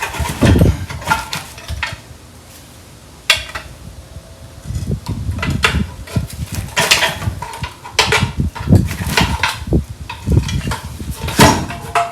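Irregular metallic clanks, knocks and scraping of hand tools against a Type 4 VW engine and transmission as a stuck bellhousing bolt is worked free to part the transmission from the engine.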